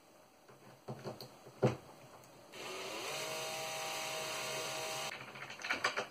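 A few sharp knocks, then a Bosch cordless drill spins up with a short rising whine about two and a half seconds in and runs steadily for about two and a half seconds, driving a screw through a metal hinge into the chipboard panel, before stopping abruptly.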